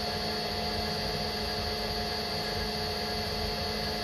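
Mini milling machine's spindle running steadily with a constant whine while a drill bit feeds slowly down into a plate, drilling a hole.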